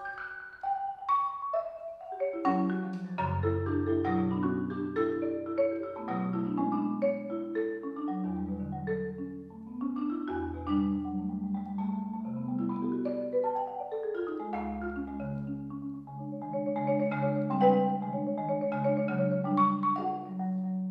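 Yamaha marimba played solo with mallets: a sparse moment of a few struck notes, then from about two seconds in long held low notes under a moving line of quicker, higher notes.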